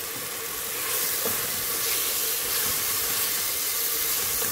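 Mutton liver masala sizzling as it fries in oil in an aluminium pressure-cooker pot, stirred with a wooden spatula. A steady hiss, a little louder from about a second in.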